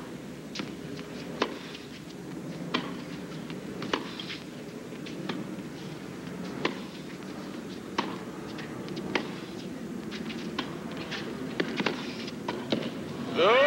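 Tennis stadium crowd murmuring between points, with scattered sharp taps and claps at irregular spacing. A louder sound with a sliding pitch starts right at the end.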